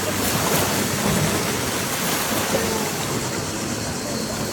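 Steady wash of sea surf at the shoreline, an even hiss of water noise.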